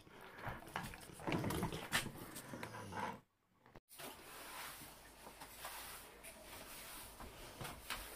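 Faint sounds of a Rottweiler moving about close by on a laminate floor, with small clicks and rustles. About three seconds in they drop out to a brief moment of silence, then carry on faintly.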